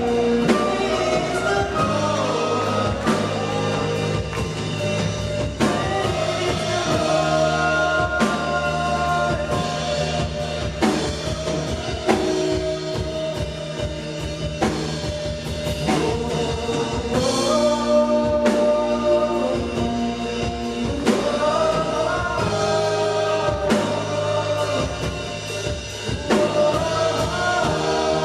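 Worship band music with a drum kit keeping the beat and voices singing a gliding melody over sustained chords.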